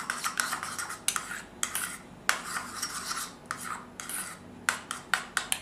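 Metal spoon scraping and clinking against a small ceramic bowl while stirring mayonnaise and tomato ketchup together, in repeated short strokes that come quicker near the end.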